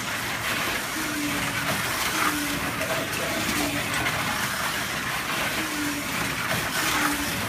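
Scaleauto slot cars lapping a multi-lane slot-car track: a steady rushing whir of electric motors and cars running in the slots, with several brief whines as cars pass.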